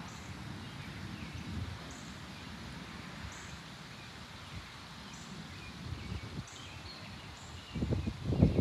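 Wind in the trees and buffeting the microphone, with a strong low gust near the end. Faint bird chirps are heard through it.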